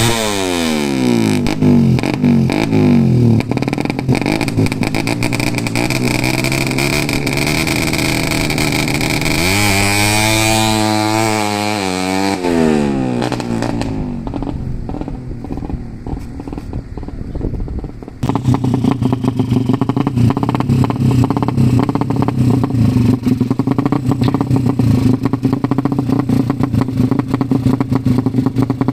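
Race-tuned Suzuki Satria FU motorcycle engine with a ported head, being revved: the revs drop at the start, it is blipped up and back down about ten seconds in, and after a sudden change near eighteen seconds it runs at a steady idle.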